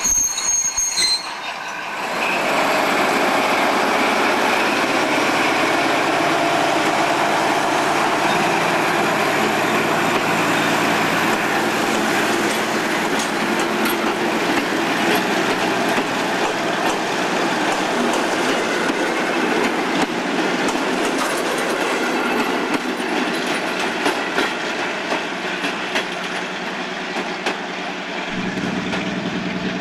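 Ex-DB class 221 (V200.1) diesel-hydraulic locomotive, OSE class 411, running on only one of its two engines as it hauls a passenger train away, with the clatter of coach wheels on the rails. Its steady sound fades slightly as the train draws off, and near the end the sound changes abruptly to a lower, steadier hum.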